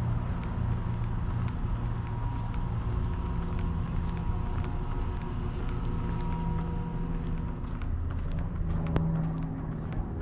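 Outdoor ambience dominated by a steady low mechanical hum at a few fixed pitches, with a faint higher tone and scattered faint clicks over it.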